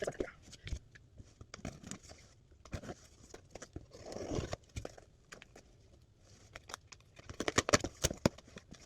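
Packing material being crinkled and torn by hand while unwrapping items from a box, with scattered sharp clicks and taps and a quick flurry of loud crackles near the end.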